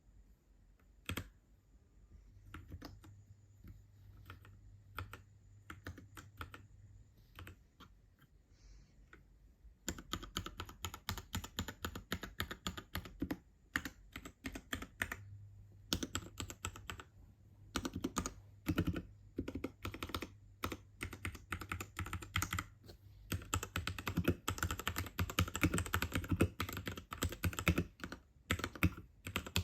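Royal Kludge RK68 mechanical keyboard with red linear switches being typed on. Scattered single keystrokes for about the first ten seconds, then steady fast typing that grows denser and louder in the second half.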